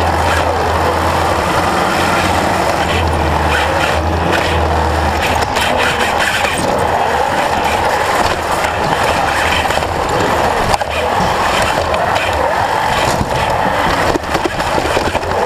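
Competition robot's electric drive motors and gearboxes running hard as it drives across the field, with frequent knocks and rattles from its frame, picked up by a camera mounted on the robot.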